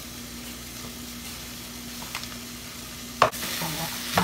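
Sliced carrots sizzling in olive oil in a stainless steel pot, with a few faint ticks as pepper is shaken over them and a steady low hum underneath. About three seconds in, a wooden spoon knocks sharply against the pot and starts stirring, and the sizzle gets louder.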